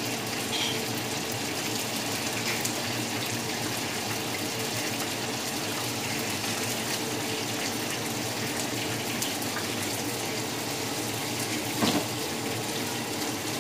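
Battered fish frying in hot oil in a pan: a steady sizzle, with a short louder knock near the end.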